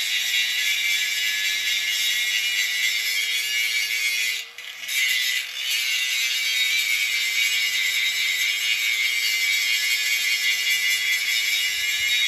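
Corded angle grinder grinding paint off the top of a steel tank: a steady high hiss over a constant motor whine. About four and a half seconds in the disc briefly comes off the metal, the hiss drops away and the whine rises a little, then grinding resumes.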